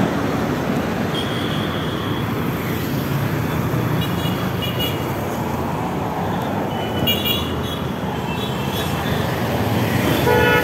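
Steady street traffic noise with several short, high-pitched vehicle horn toots, most of them around four to five seconds in and again around seven to nine seconds in.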